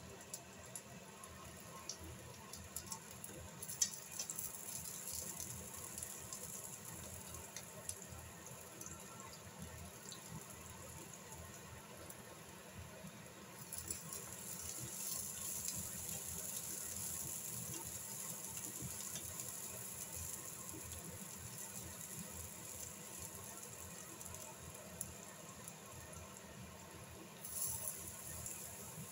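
Diced vegetables frying in oil in a nonstick pan: a light, steady sizzle that grows louder about halfway through as diced green pepper is tipped in, with a few small clicks along the way.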